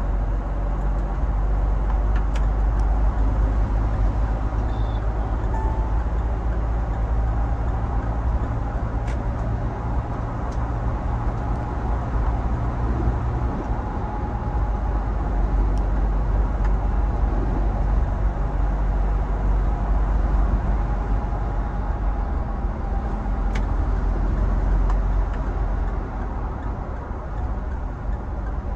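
Mahindra Thar 4x4 on the move: a steady low engine and road rumble while driving.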